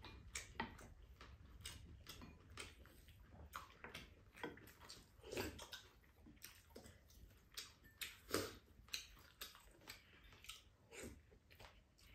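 Faint eating sounds at a table: wooden spoons clicking and scraping against ceramic plates and bowls, mixed with chewing and lip smacks, in short irregular clicks a few times a second.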